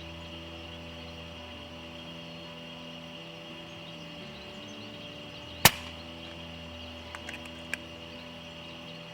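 A single sharp shot from an FX Dreamline Classic .22 PCP air rifle a little past halfway, followed by a few faint clicks, over soft background music.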